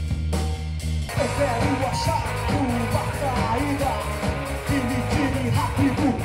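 Live grunge-style rock band playing: a low held bass note with drum hits, then about a second in a man starts singing over the guitars and drums.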